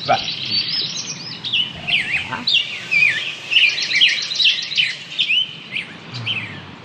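A chorus of small birds chirping and twittering: many short, high, quick calls sweeping up and down and overlapping one another.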